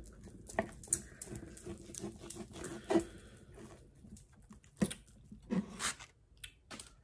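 Steak knife sawing through a thick grilled steak, with irregular scrapes and clicks of knife and fork against the meat and wooden board.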